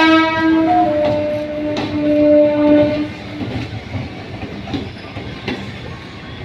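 Train horn sounding for about three seconds, dropping slightly in pitch about a second in. It gives way to the rumble of a running train, with occasional clacks of wheels over rail joints.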